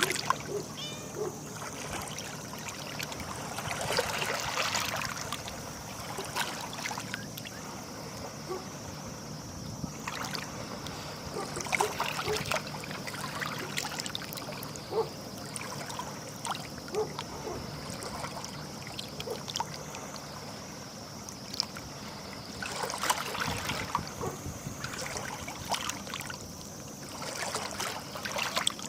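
Small sea waves lapping and splashing at the water's edge, with trickling water between them. The splashing swells up a few times, about four, twelve and twenty-three seconds in.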